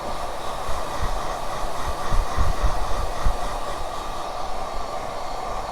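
Hair dryer blowing steadily, drying a layer of lace wig glue, with a few low thumps of air buffeting between about one and three seconds in.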